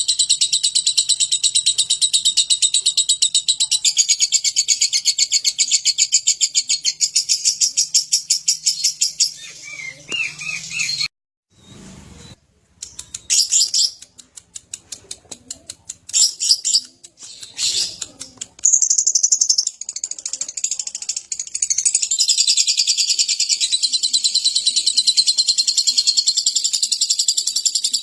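Lovebird singing its ngekek: a long, fast, unbroken high chattering trill. It breaks off about ten seconds in, pauses briefly, comes back in short bursts, then runs on unbroken again from about twenty seconds.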